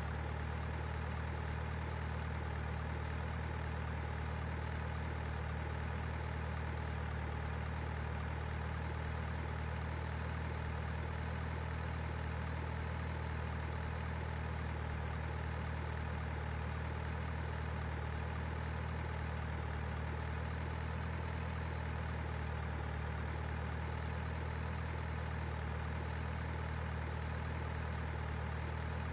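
Simulated truck engine idling: a steady low hum that does not change.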